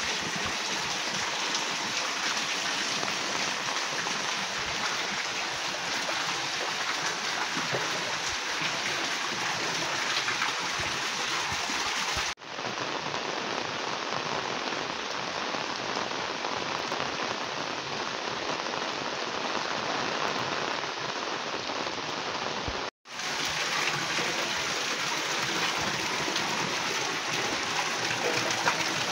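Heavy rain falling steadily onto flooded lanes, an even hiss of rain on water and hard surfaces. The sound cuts out for a moment twice, about twelve seconds in and again about twenty-three seconds in, where clips are joined.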